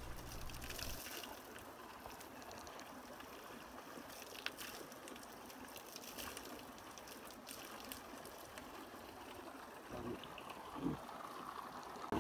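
Water running steadily from the pipe spout of a stone village tap, trickling and splashing onto a hand held beneath it, faint and even. A couple of soft thumps come near the end.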